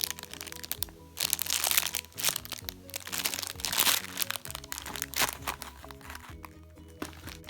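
Background music playing, over repeated crinkling and crunching as a squishy toy is handled.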